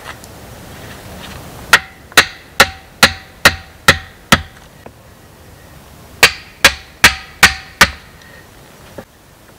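A hatchet striking a wooden stake, knocking it into place: seven sharp blows at about two and a half a second, a pause, then five more. Each blow has a brief ring.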